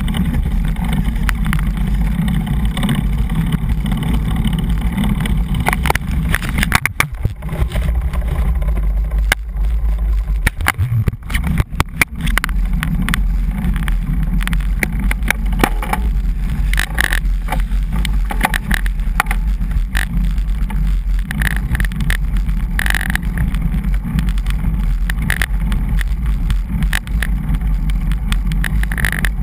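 Wind buffeting the microphone of a GoPro camera mounted on a road bike while riding, a steady low rumble mixed with tyre and road noise. Scattered clicks and rattles throughout, with the rumble easing briefly a few times around a third of the way in.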